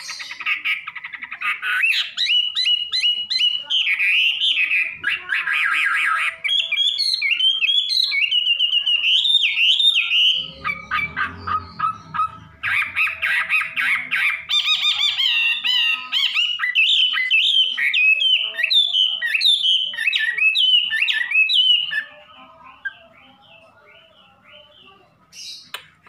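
Chinese hwamei (melodious laughingthrush) singing loudly in long runs of fast, varied whistled phrases that swoop up and down in pitch. There is a short break about ten seconds in, and the song stops about four seconds before the end.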